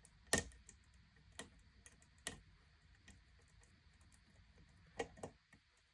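Lock pick and tension wrench working the pins of a pin-tumbler challenge lock with serrated pins: a handful of sharp, unevenly spaced metal clicks, two close together near the end, with faint small ticks between.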